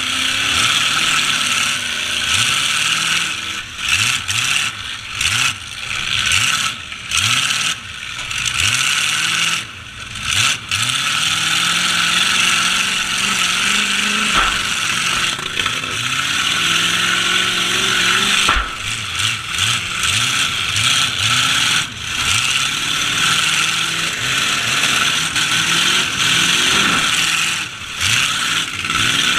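Truck engines in a demolition derby revving hard again and again, each rev climbing and falling in pitch every second or so, over a steady high noise.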